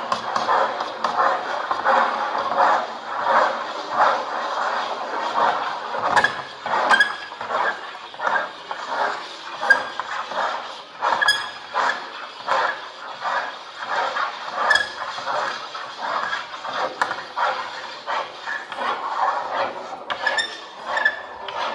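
Electronically amplified scratching of several pens drawing repetitive strokes on paper, many overlapping strokes in a fast rhythm, with a few sharper clicks.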